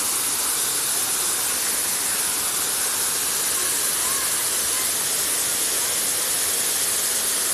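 Waterfall cascading over a rock ledge into a plunge pool: a steady, even rush of falling water.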